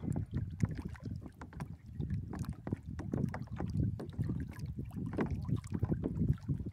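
Water lapping and splashing irregularly against a kayak hull, with wind buffeting the microphone.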